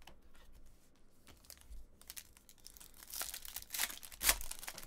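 Foil wrapper of a trading-card pack crinkling and tearing as it is ripped open: a few light crackles at first, then a dense flurry of crinkling over the last few seconds, loudest just before the end.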